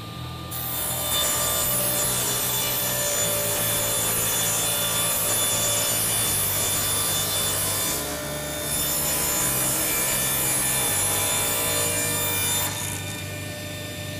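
Table saw blade ripping a wide plywood board lengthwise, a loud steady cutting noise that starts about half a second in, dips briefly about two-thirds of the way through, and stops about a second and a half before the end. The saw's motor keeps spinning freely after the cut.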